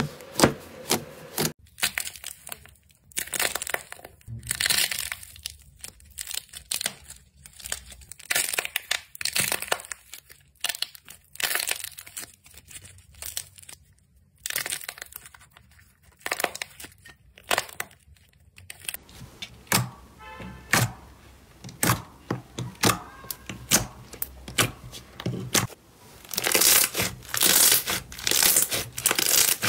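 Hands squeezing and kneading slime, with runs of sticky clicks, pops and crackles as air pockets burst. It comes in several separate takes, loudest and densest near the end.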